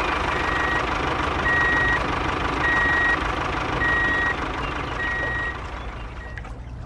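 A vehicle's reversing alarm beeping five times, about once a second, over the steady running noise of a machine that fades near the end.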